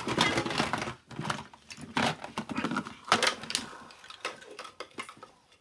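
Plastic toys clattering and knocking as they are handled and put down: an irregular run of sharp clicks and knocks, busiest in the first half and thinning out near the end.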